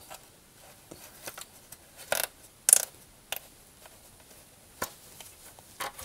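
Tumble dryer heating-element wires being handled and pushed under a plastic cable clip: light rustling with a few short, sharp scrapes and clicks, the loudest a little before halfway, then single small clicks.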